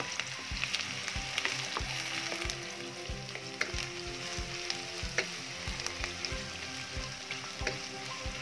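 Sliced onions and bay leaves sizzling and crackling in hot oil, with a wooden spatula stirring them and knocking softly against the pan about twice a second.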